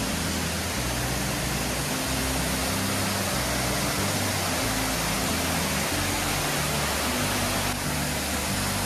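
Waterfall pouring over stepped rock ledges into a pool: a steady, even rush of water. Background music with held low notes runs underneath.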